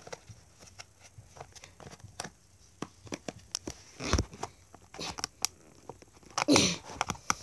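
Plastic tub of slime being worked open by hand: scattered small clicks and crackles of the lid and seal, with a few louder knocks. A short voice sound comes near the end.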